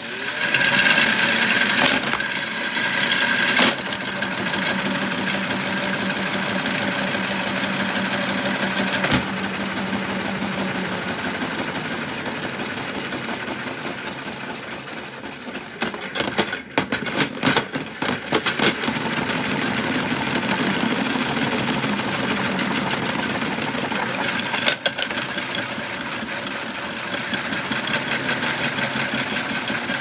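The small electric motor of a washMATIC toy washing machine running steadily, turning the drum with a whir. A run of clicks and knocks about sixteen to nineteen seconds in.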